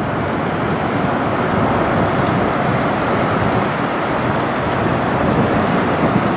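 Steady rushing noise with no distinct tones as the bulk carrier Algoma Mariner passes close by: the ship and the water along its hull, mixed with wind on the microphone.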